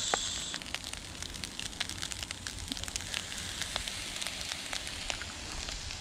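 Egg fried rice frying in a pan on a gas stove: a steady sizzle with irregular crackling pops.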